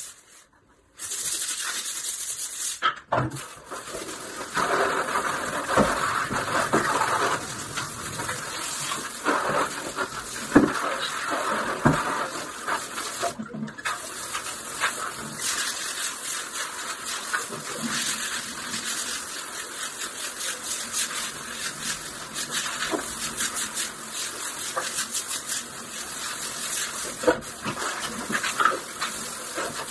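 Water spraying from a handheld bidet sprayer onto a tiled bathroom floor: a steady hiss that starts about a second in, with scattered knocks.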